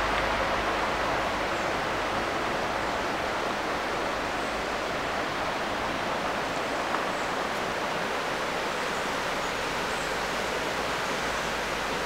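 Shallow river rushing over rocks: a steady, even sound of flowing water.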